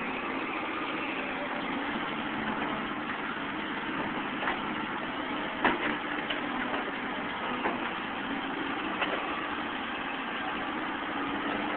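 Caterpillar 235 excavator's diesel engine and hydraulic pump running steadily while digging, with a few brief sharp knocks from the bucket and linkage scattered through.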